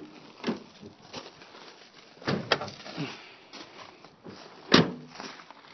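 Clicks and clunks of a 1990 Chevrolet Caprice's hood being released and opened: a few light knocks, a quick pair of clicks about halfway, and one loud clunk near the end.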